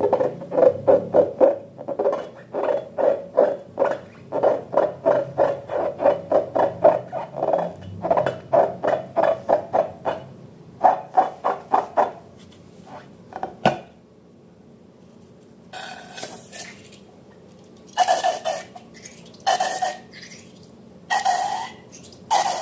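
Slime being stirred and worked, a fast run of wet strokes about three to four a second that stops about twelve seconds in; near the end come a few separate squelches.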